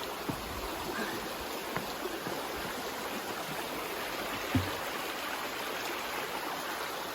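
A small creek running over rocks, a steady rush of water, with one low thump a little past halfway.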